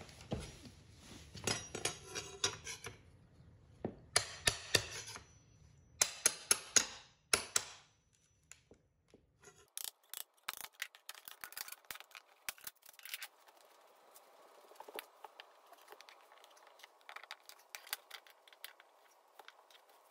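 Hammer tapping a flat steel pry bar under a wooden floor transition strip, in quick bursts of sharp metallic strikes. After that, scattered lighter clicks and creaks as the strip is levered up off its nails.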